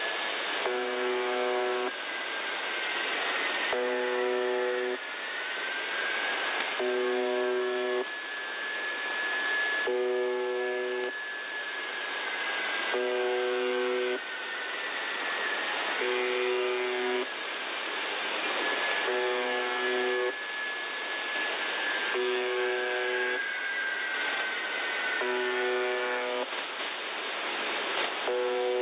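The UVB-76 'Buzzer' shortwave station on 4625 kHz, heard through a receiver in upper sideband. Its buzz sounds for about a second, roughly every three seconds, over steady radio hiss. A thin whistling tone slides slowly up and down in pitch all the while: the whale-like oddity.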